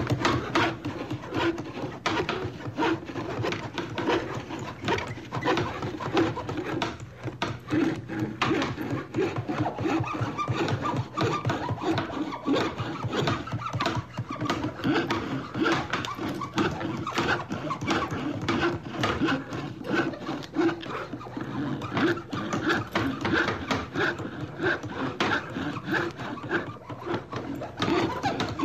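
Carpentry hand tools on wood: hammering and hand-saw strokes in a continuous, busy run of sharp knocks and scrapes.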